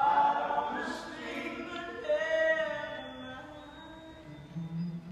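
Three voices, men and a woman, singing together in close harmony with little or no accompaniment, heard from far back in a concert hall. The voices come in strongly at once, swell again about two seconds in, then fade.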